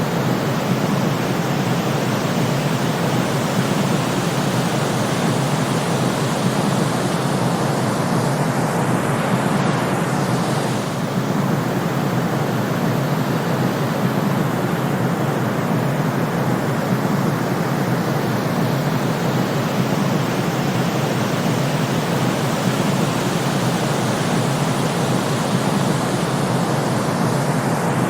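Steady white-noise sleep track: a constant, even rushing hiss with no rhythm or tone, heavier in the low-middle range.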